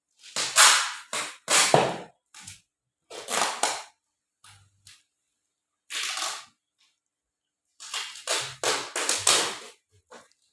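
Plastic parcel packaging being torn and pulled open by hand: sharp ripping and crackling bursts in bunches, with a short dense run of rips about eight seconds in.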